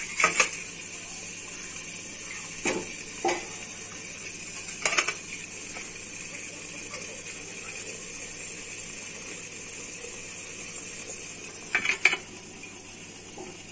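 Water boiling steadily in a stainless-steel idli steamer, a constant hiss, with several short metallic clinks of steel idli plates being set in, a pair of them near the end.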